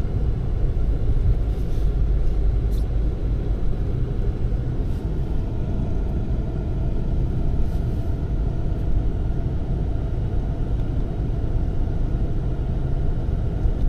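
Road and tyre noise of a moving car heard inside its cabin: a steady low rumble.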